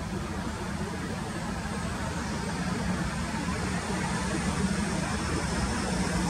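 Class 153 diesel railcar's underfloor diesel engine running, a steady low drone that grows a little louder over the second half.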